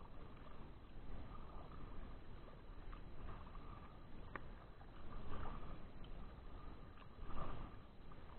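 Kayak paddle strokes: soft watery swishes as the blade dips and pulls through calm river water, about one every two seconds. A single faint click comes near the middle.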